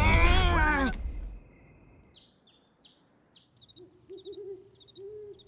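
Cartoon night ambience: loud music fades out a little over a second in, a few short high falling chirps follow, and an owl hoots near the end.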